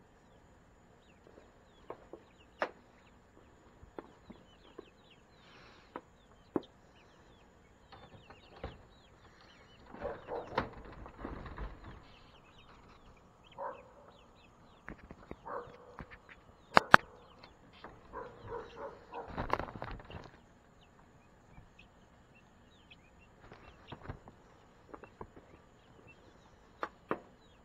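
Young chicks under a heat lamp peeping and clucking softly, many short high chirps throughout. Scattered sharp clicks, the loudest about two-thirds of the way through, and two longer stretches of rustling noise, one near the middle and one a little later.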